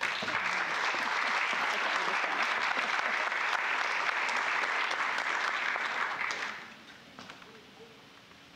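Audience applauding, a dense steady clapping for about six and a half seconds that then dies away quickly.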